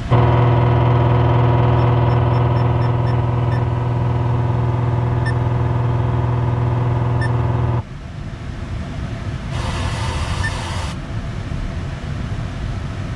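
A car radio head unit tuned to AM gives out a loud, steady electrical buzz with no station, which cuts off suddenly about eight seconds in. It then switches to FM static hiss while tuning, with a brighter burst of hiss around ten seconds in.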